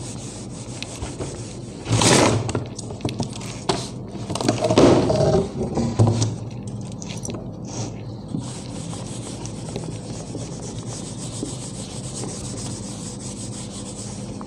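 Whiteboard eraser rubbing and scraping across a whiteboard, wiping off marker writing in strokes. The loudest swishes come about two seconds in and again around five seconds, followed by steadier, softer rubbing.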